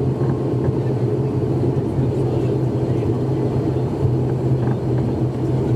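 ATR 72-600's Pratt & Whitney PW127M turboprop engines and propellers heard from the cabin beside the engine: a steady drone with a strong low propeller hum as the aircraft rolls along the runway after landing.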